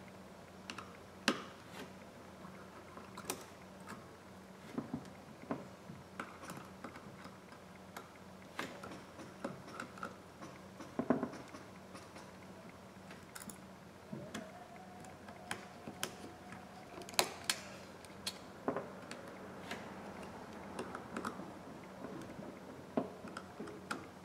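Scattered small clicks and taps of a precision screwdriver and fingers on the tiny screws and metal brackets inside an opened iPhone, coming at irregular intervals over a low steady hum.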